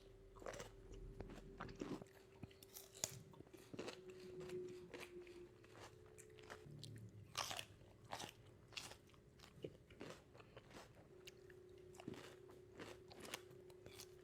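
Close-up chewing of crisp raw cucumber pieces, a string of faint irregular wet crunches, over a steady low hum.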